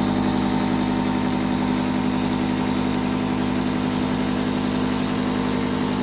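An engine idling steadily: a constant hum with a strong low pitch that does not change.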